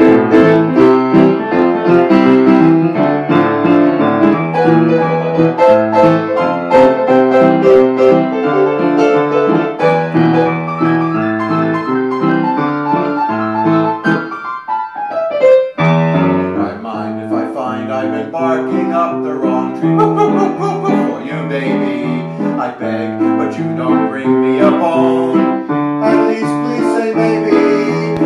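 Piano played solo in a fast, lively instrumental break of dense chords and runs, with a short downward run and lull about halfway before the playing picks up again.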